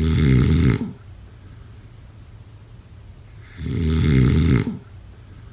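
Snoring: two loud snores, each about a second long and about four seconds apart, the first right at the start and the second near the end, with quiet breathing between them.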